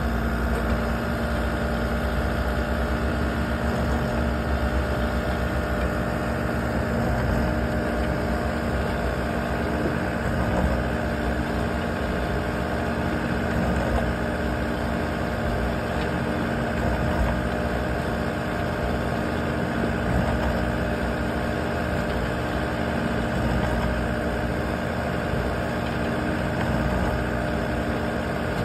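Loader engine running steadily, driving a Flip Screen S45 screening bucket as its drum rotates and sifts soil through the mesh, with occasional light knocks.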